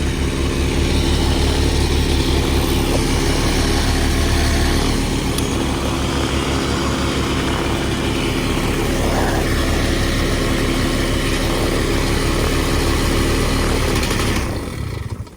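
Paramotor's two-stroke engine and propeller running steadily on the ground, still going because the broken kill switch wire won't shut it off. The engine sound cuts off sharply near the end.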